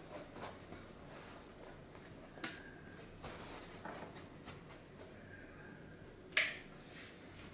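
Faint handling noises from an aftermarket car head unit being handled and wired up at the back: scattered light clicks and knocks, with one sharper knock about six and a half seconds in.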